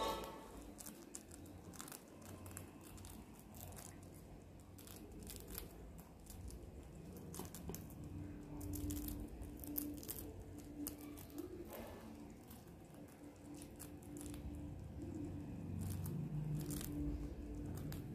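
Baby white rats gnawing and nibbling a piece of biscuit: irregular crisp crunching clicks.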